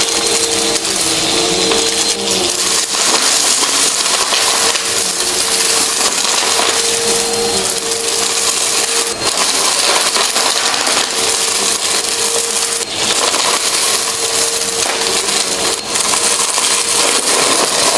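Bissell upright vacuum cleaner running with a steady motor whine while it sucks up a pile of small, hard, colourful debris from a carpet, the pieces crackling and rattling up through the nozzle, with a few sharper clicks from larger bits.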